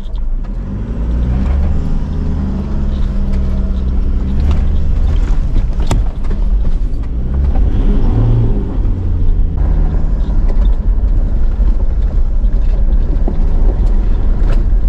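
A 4x4's engine running under load as it drives a rough dirt track, heard from inside the cabin, its note rising and falling. Sharp knocks and rattles come from the vehicle over the bumps, the loudest about six seconds in.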